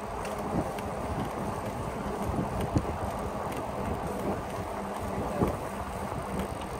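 Wind noise on the microphone and fat e-bike tyres rolling on pavement while riding, with a faint steady hum underneath. Two sharp knocks come through, one near the middle and one about three-quarters of the way in.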